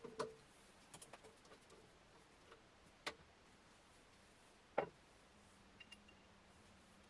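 Scattered light clicks and knocks from hands handling a wooden bowl and a stopped wood lathe, with a sharper knock about five seconds in.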